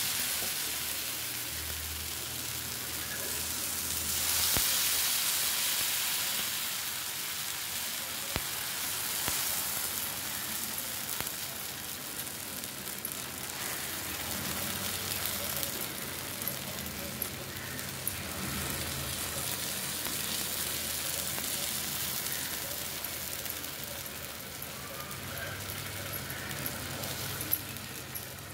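Pesarattu (green gram dosa) batter sizzling on a hot, oiled thick tawa as a ladle spreads it out, with a steady hiss that swells a few seconds in. A few light clicks come from the ladle against the pan.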